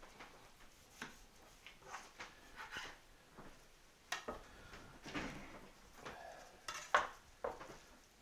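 A knife scraping and tapping on a plastic cutting board while fat and silver skin are trimmed off a beef bottom round, with soft slaps of wet meat trimmings being handled. It comes as an irregular string of short, quiet knocks and scrapes; the sharpest is about four seconds in.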